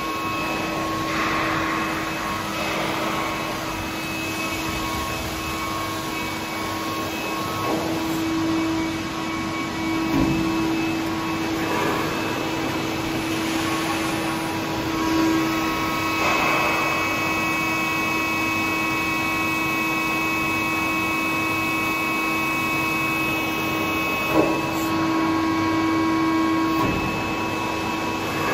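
Durma CNC press brake running: a steady machine hum, with a few brief rushes of noise and one sharp click near the end.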